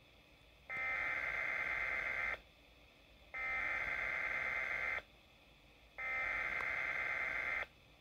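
SAME digital alert header from a weather radio broadcast: three identical buzzing data bursts of about a second and a half each, with about a second of quiet between them. It is the coded header sent three times to trigger alert radios for a warning, heard through a weather radio's small speaker.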